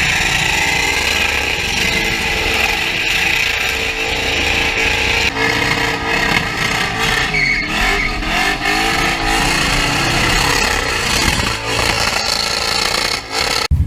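A car engine revving at high rpm, its pitch rising and falling, over a steady loud hiss; it cuts off suddenly near the end.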